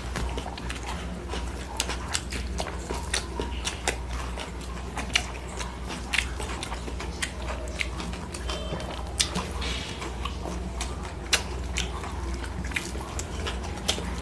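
Close-miked eating by hand: wet chewing and lip smacks, with fingers mixing rice and curry on steel plates, heard as many irregular short clicks and smacks over a steady low hum.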